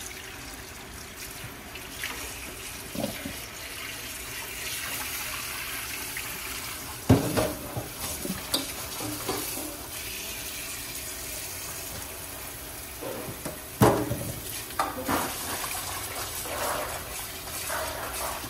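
Tap water running into a metal bowl in a stainless steel sink while chopped duck is rinsed by hand. Two loud metal clanks come about seven and fourteen seconds in, with lighter knocks between.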